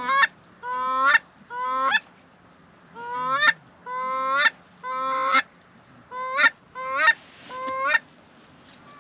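Canada goose honking: about nine loud, close honks, each rising in pitch and breaking off at the top, spaced about a second apart and stopping near the end.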